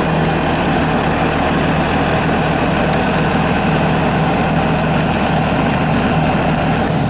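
Bobcat S250 skid steer's Kubota diesel engine running steadily at a constant speed.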